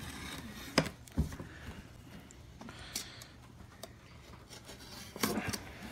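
Packing tape on a cardboard box being scratched and picked at with a pen to cut it open: faint rubbing and scraping with a few sharp crackles and clicks.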